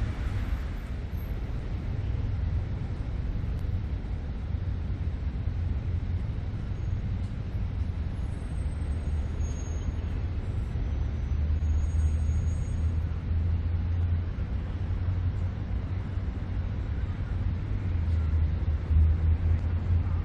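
Steady low rumble of city road traffic, swelling a little about twelve seconds in and again near the end.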